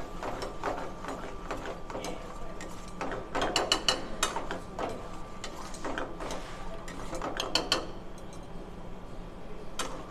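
Steel ladle stirring thick gravy in a stainless steel frying pan, with bursts of quick metal-on-metal clicks and scrapes as the ladle strikes and drags along the pan.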